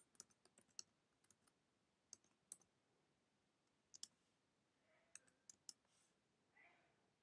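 Faint, scattered keystrokes on a computer keyboard, about eight separate clicks with gaps between them, against near silence.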